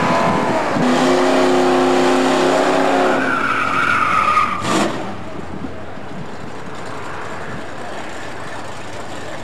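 V8 drag car doing a burnout: the engine is held at high revs while the tyres squeal for about five seconds. It ends with a sharp crack, then only a steady, lower rumble remains.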